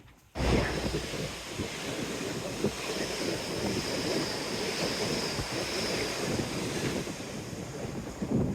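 Strong gusty wind buffeting a phone's microphone, cutting in abruptly about half a second in.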